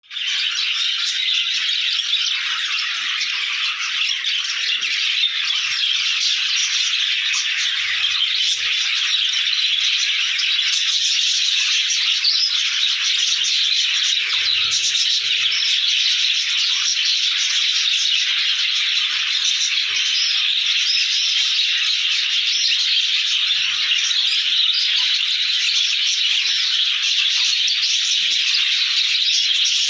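Many small caged parrots (love birds) chattering and chirping at once, a dense, continuous high-pitched din.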